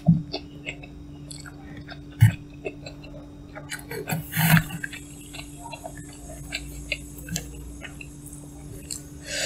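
A person eating Korean cup noodles close to the microphone: scattered wet mouth clicks and smacks of chewing, a sharp thump about two seconds in, and a short, loud, noisy burst about halfway through, over a steady low hum.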